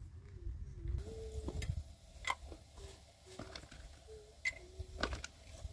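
Glass jar and plastic lid being handled, giving a few sharp clicks and taps spaced a second or two apart, over a faint wavering hum.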